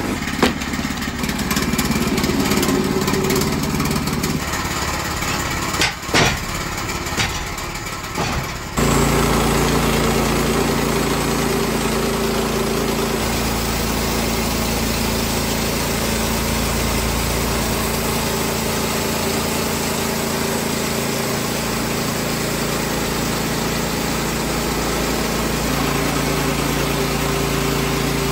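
Gas engine of a Woodland Mills HM122 portable bandsaw mill running steadily under load as its band blade saws lengthwise through a log. A few sharp knocks come in the first several seconds.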